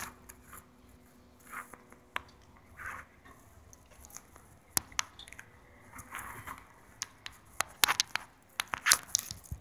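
Quiet handling noise: scattered sharp clicks and a few short rustles of things being handled close to the microphone, with the clicks coming thicker near the end.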